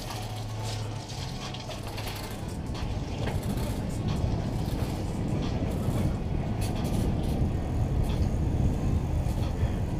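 Low rumbling wind and rolling noise on a moving camera's microphone, slowly getting louder as the ride speeds up along a sidewalk.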